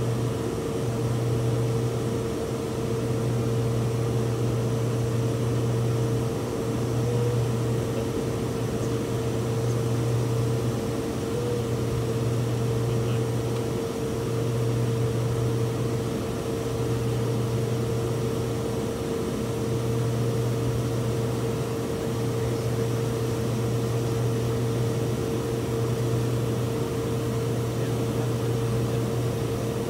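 Fokker 50 turboprop's engines and propellers droning steadily, heard on the flight deck. A low hum swells and fades about every two seconds, over a steady higher hum and a rush of noise.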